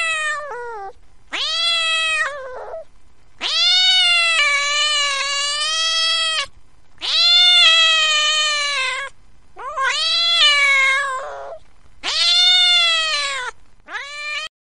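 Kitten meowing repeatedly: about seven drawn-out, high meows, each rising then falling in pitch, several lasting two to three seconds.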